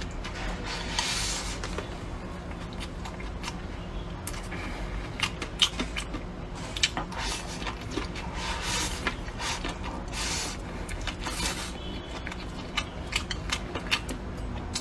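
Close-miked eating sounds: chewing, with many small wet clicks and smacks of the mouth and a few longer noisy swells, as of eating fish-skin rolls with rice.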